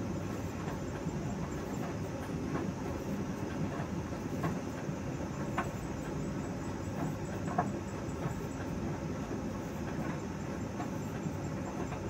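Steady low rumbling background noise with a few faint ticks scattered through it.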